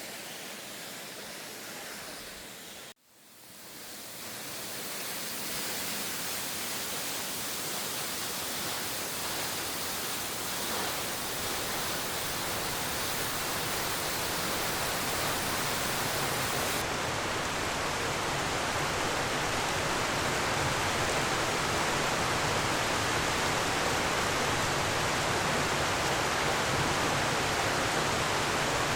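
Steady rush of falling water from Hardraw Force waterfall. It cuts out abruptly about three seconds in and swells back, growing louder over the next several seconds.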